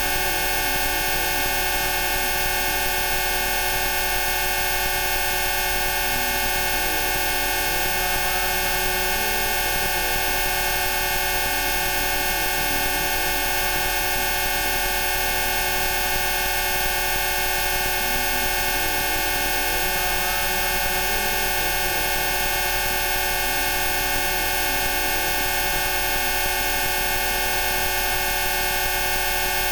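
Synthesized Rife-frequency tones: many steady electronic pitches held together in a dense, unchanging chord, with a faint wavering sound lower down.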